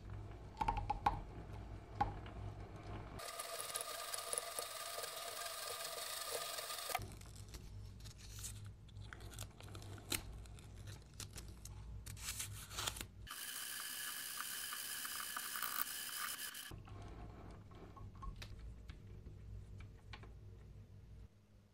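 Metal lathe slowly turning a doorbell's electromagnet coil while its old wire is unwound and the paper layer beneath is peeled off. Two stretches of a steady whine of several tones, each lasting three to four seconds, stand out as the loudest sound. Between them are a low hum with scattered clicks and rustling of wire and paper.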